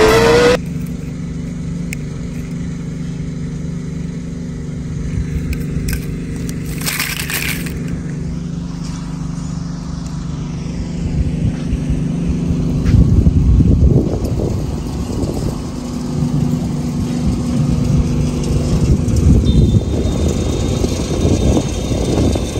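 Steady low hum of a machine running, with crunching steps on gravel and sand that grow louder about thirteen seconds in and again near the end.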